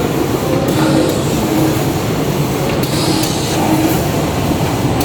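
Industrial production machine running steadily, a loud continuous mechanical clatter with a faint repeating hum.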